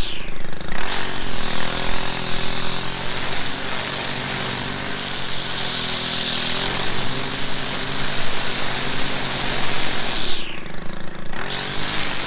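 Stihl FS 190 R two-stroke string trimmer running at high throttle while cutting weeds. It eases off briefly about ten seconds in, then opens up again.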